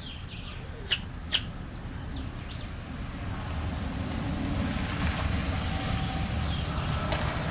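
Two sharp, high clicks or chips about a second in, half a second apart, with faint short chirps around them; from about three seconds on, the low rumble of a vehicle grows louder and holds.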